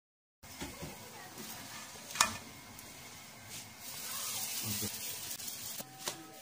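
Msemen flatbread sizzling on a hot flat pan, a steady hiss that swells louder in the middle, with one sharp click about two seconds in.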